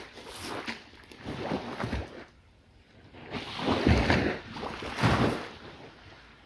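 Surf washing onto the beach in swells, with one loud surge about four seconds in, and wind buffeting the microphone.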